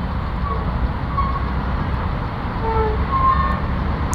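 Steady low rumble of road traffic on a waterlogged highway, with a few faint short tones standing out above it.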